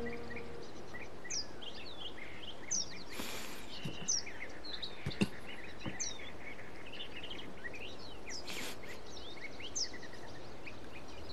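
Small birds chirping and twittering in short scattered calls over a steady background hiss, with two brief soft rushes of noise.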